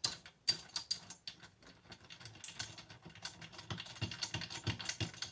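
Ratchet socket wrench clicking in quick runs as 7 mm bolts are undone on a washing machine motor's casing.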